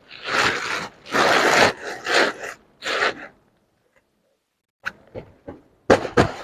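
Bag being handled off-camera: about four bursts of rustling in the first three seconds, then a pause and a few light knocks and clicks as the floral fabric handbag is brought to the table.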